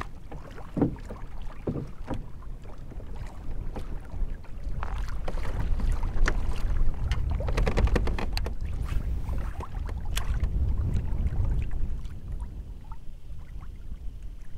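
Water sloshing against a Hobie Outback fishing kayak's hull as it moves across open, choppy water, with wind rumbling on the microphone and a few light clicks and knocks from the boat. The rumble grows louder from about four seconds in and eases off near the end.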